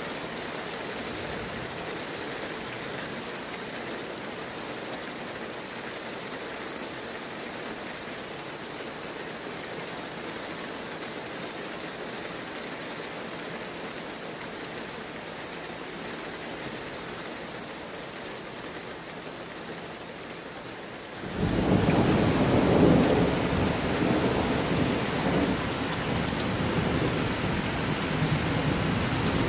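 Heavy rain falling steadily. About two-thirds of the way through, it abruptly becomes much louder and deeper, and stays that way.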